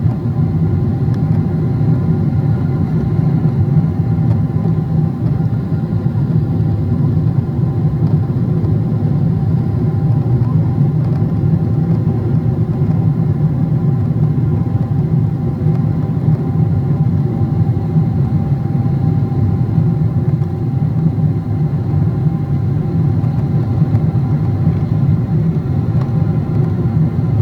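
Cabin noise of a Boeing 777-300ER climbing after takeoff: the steady, loud rumble of airflow and its GE90-115B turbofan engines, with several faint, steady whine tones above it.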